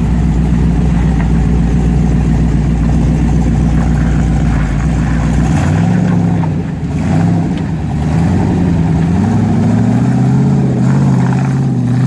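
Off-road Jeep engine running steadily at low revs, then from about halfway revving up and down repeatedly as it crawls up a steep rock ledge under load.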